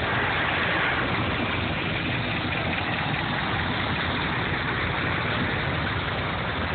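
Vintage farm tractor engines running steadily, one tractor driving past close by.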